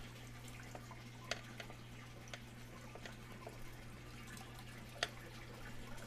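Water running faintly into a large aquarium being filled from the tap, with a low steady hum under it and a few scattered sharp drips.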